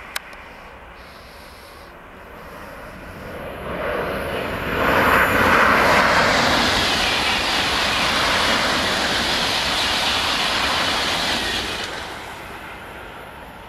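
Double-deck TGV high-speed trains passing at speed: a rushing noise that swells about four seconds in, holds loud, and falls away about twelve seconds in. A single sharp click sounds at the very start.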